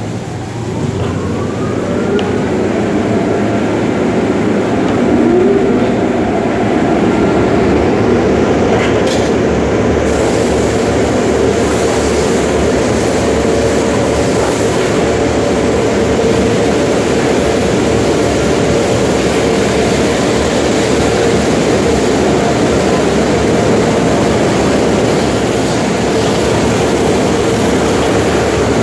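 Tunnel car wash machinery running with a steady mechanical hum, and a whine that rises and levels off in the first two seconds. High-pressure water sprays onto the car, its hiss growing stronger about ten seconds in.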